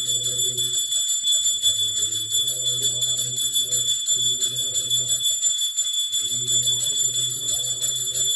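Temple handbell rung rapidly and without a break during the aarti, its bright ringing tones steady throughout. A lower pitched chant-like sound runs underneath and pauses briefly a few times.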